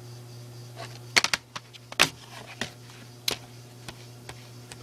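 Sharp plastic clicks and taps from handling a DVD case and disc: a quick cluster of clicks about a second in, then single clicks every half second to a second.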